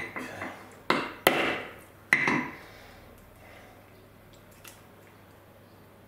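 Small hammer tapping the new shaft into a brushless RC-plane motor held on a wooden block: four sharp knocks in the first two and a half seconds, each with a short ring. The taps drive the shaft a couple more millimetres in to set how far it sticks out.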